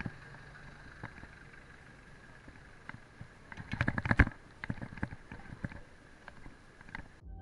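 Mountain bike rolling along pavement, with a cluster of rattles and knocks about three and a half to four seconds in as it bumps onto brick paving, and a faint steady high whine.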